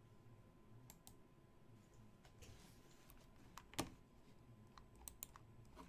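Near silence broken by a handful of faint, scattered clicks from a computer keyboard and mouse, the loudest a little past the middle.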